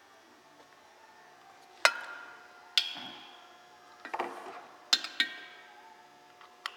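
Metal tools and engine parts being handled on a workbench: a handful of sharp metallic clinks and knocks, each ringing briefly, with a rustle about four seconds in.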